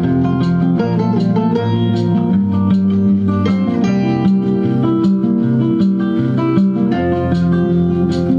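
Guitar music with plucked and strummed notes, played through a home-built 833A valve (tube) audio amplifier on its first test.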